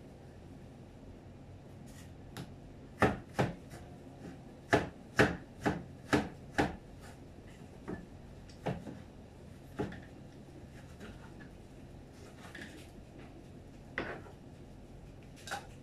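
Cleaver chopping tomatoes on a cutting board: sharp knocks of the blade on the board, about two a second from around two to seven seconds in, then a few scattered strokes.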